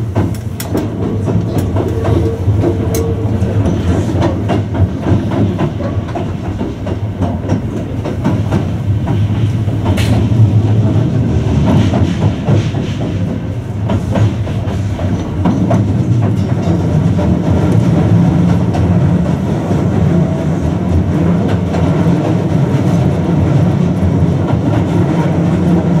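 Running sound inside a Hankyu new 1000 series electric multiple unit with permanent-magnet synchronous motors: a steady rumble of wheels on rail with scattered clicks over rail joints. A low hum grows firmer in the second half.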